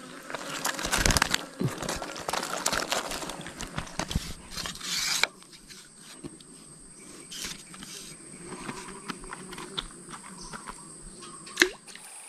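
Close rustling, crackling and clicking handling noise, dense for about the first five seconds and then sparse, with one sharp click near the end. A faint steady high whine runs underneath.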